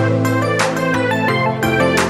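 Electronic background music with sustained synth chords, a bass line and a steady beat.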